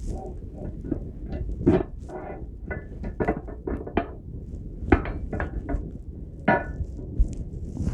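Irregular metallic clinks and knocks, some ringing briefly, as steel table-saw stand parts and hardware (bolts, spacers) are handled and fitted together.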